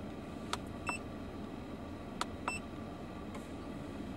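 Two short key beeps from an Autel MD802 scan tool, each just after a click of its keypad, about a second and a half apart, over a car engine idling steadily.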